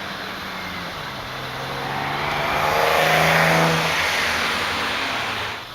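A car driving past, its engine and tyre noise swelling to a peak about three seconds in, then fading. The sound cuts off abruptly near the end.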